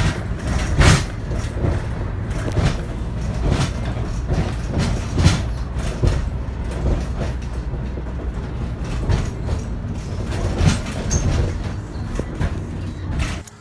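Inside the cab of a vehicle driving on a road: a steady low engine and road rumble with frequent irregular rattles and knocks from the cab.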